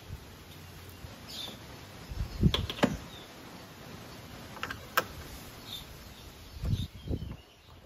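A handful of separate metal clinks and knocks from hand tools: a 10 mm socket on an extension being handled and fitted to a ratchet.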